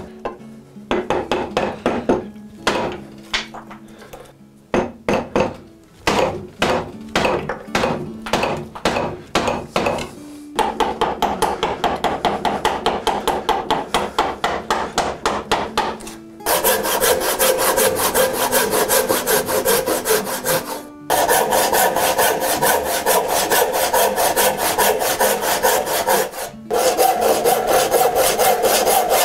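A wooden mallet strikes a chisel into a white oak block in sharp, irregular blows. Next comes a run of quick chisel paring strokes. Then a handsaw cuts through the oak in steady back-and-forth strokes, stopping briefly twice.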